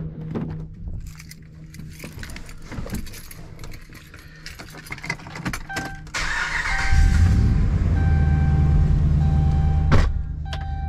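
Keys jangling and door handling, then about six seconds in the 5.7 L HEMI V8 of a 2012 Dodge Ram 1500 cranks briefly, catches and settles into a steady idle. A repeating electronic chime sounds over the idle, and a sharp thump comes about ten seconds in.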